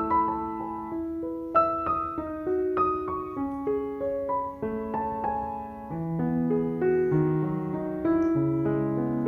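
Background piano music: a gentle melody of single notes, with lower bass notes joining about six seconds in.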